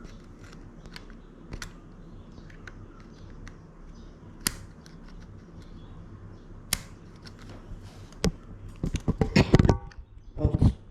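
Metal tweezers clicking and scraping inside a bike's gear shifter while trying to prise out a stuck bit of shifter cable. There are scattered light ticks, then a quick, louder flurry of clicks near the end.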